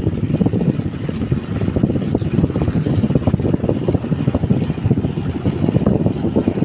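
Wind buffeting the microphone of a phone on a BMX bike being ridden along a road: a steady, fluttering low rumble.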